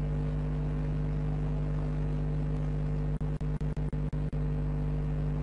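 Septic vacuum truck's engine and suction pump running with a steady low drone, the sound cutting out briefly several times about three seconds in.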